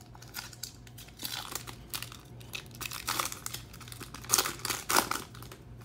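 Foil trading-card pack wrapper crinkling and tearing as it is pulled open by hand. Crackling comes in several louder bursts, the loudest a little past four and five seconds in.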